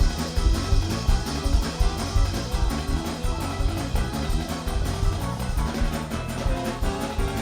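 Instrumental band music with guitar over a steady bass and drum pulse.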